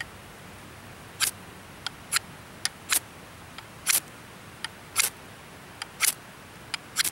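A ferro rod struck hard against the square spine of a Chris Caine Companion knife, 1075 high-carbon steel, in seven short, sharp scrapes about a second apart that throw sparks well. Lighter clicks come between the strokes as the rod is set back against the spine.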